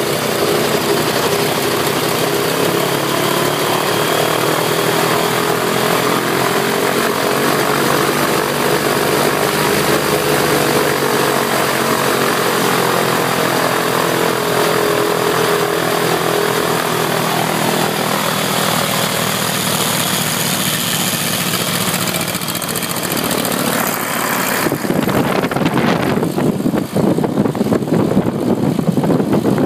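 Continental 4A084 air-cooled flat-four engine of a mini-airboat running steadily with its propeller turning; its speed rises a little and settles back. About 25 seconds in the sound turns into a deeper, rougher rush.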